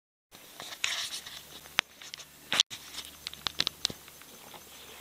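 Scattered sharp clicks and knocks with a short rustling splash about a second in, close to the microphone: paddle and canoe-hull handling on the water.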